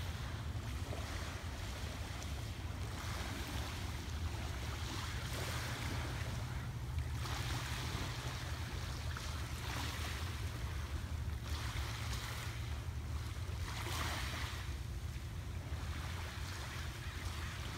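Small waves lapping and washing onto a gravel beach, a soft swash rising and falling every second or two, over a steady low rumble.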